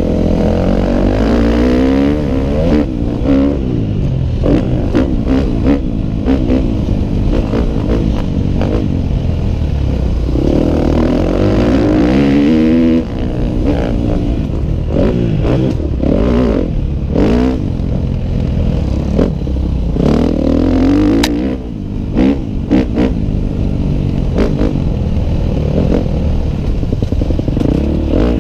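Dirt bike engine heard from on the bike, revving up and down again and again as the throttle is worked through the gears. The engine eases off briefly twice, about halfway and again about three quarters of the way through. Clattering knocks come throughout from the bike bouncing over the rough dirt track.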